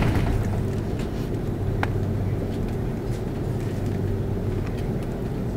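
Steady low roar of an Airbus A330-300 cabin, engine and airflow noise with a constant low hum, with a brief swell right at the start and a few faint clicks.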